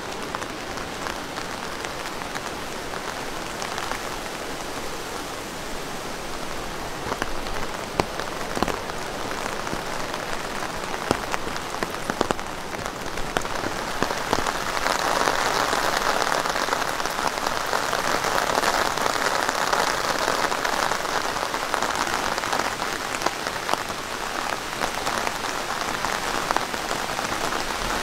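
Typhoon rain falling steadily, with sharp drop impacts ticking here and there. It grows louder about halfway through.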